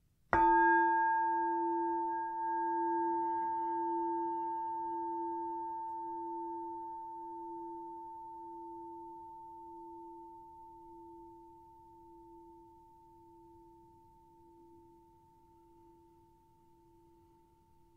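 A meditation bowl bell struck once, ringing with a low wavering hum and a clearer higher tone above it, fading slowly until only a faint ring is left.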